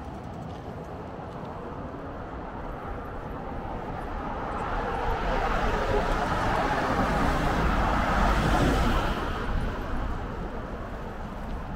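A car passing close by on the road. Its tyre and engine noise builds for several seconds, peaks about eight seconds in, then fades away.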